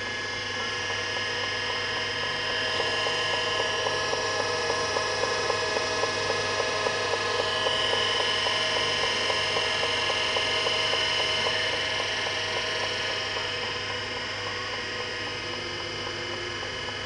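Seagate ST-251 MFM hard drive running during a DOS format: a steady spindle hum and whine with a regular ticking of the head stepping from track to track as the format works through the disk.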